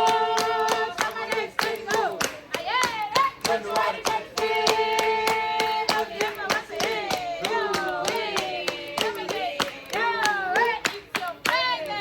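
A group of people singing together while clapping their hands in a steady rhythm, about three to four claps a second.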